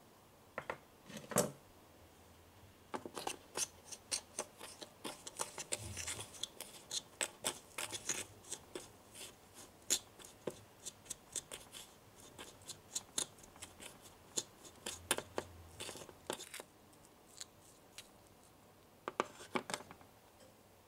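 Small plastic spatula scraping and tapping against a small clear bowl while stirring dampened Konapun powder into crumbly dough: quick, irregular clicks and scratches, several a second. There is a pause in the stirring a little before the end, then a few more strokes.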